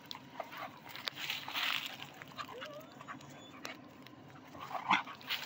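Dogs at rough play, with short scuffling noises and a brief rising whine about halfway through.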